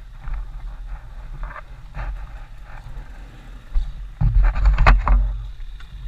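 Scuffing, scraping and knocks from a KTM dirt bike lying on its side as the rider handles it and scrambles beside it, over low rumble from the helmet camera. A louder cluster of knocks with one sharp clack comes about four seconds in.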